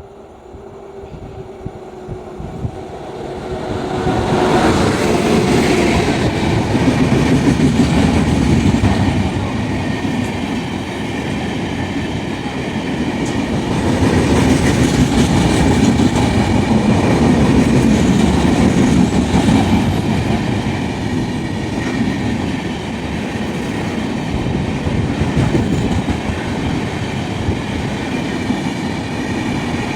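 Passenger train passing close by, its wheels clattering over the rail joints. The noise builds over the first four seconds as the train arrives, then stays loud as the coaches roll past.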